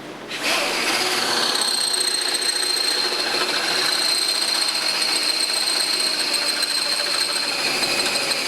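Power drill boring a hole in a hood bracket. It starts about half a second in and runs steadily at speed with a high whine, stopping near the end.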